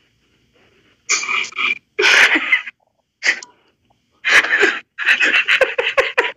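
A woman laughing in breathy bursts, beginning about a second in and turning into quick, short pulses of laughter near the end.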